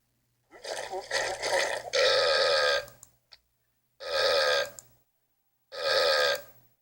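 Four long burps in a row, each lasting about a second, with short silences between them.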